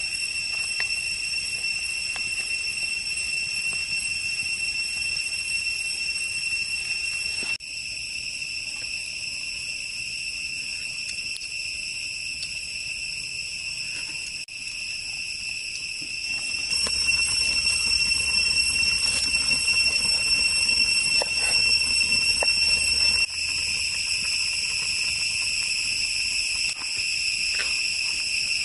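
Insects trilling steadily at a high, even pitch over a low hiss. The level jumps abruptly a few times, and a few light clicks fall in the middle.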